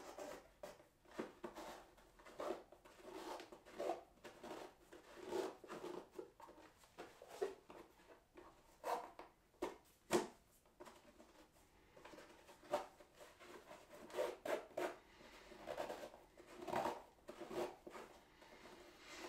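Laces being untied and pulled loose through the eyelets of new football boots: irregular short rustling, scraping pulls with a couple of sharper snaps.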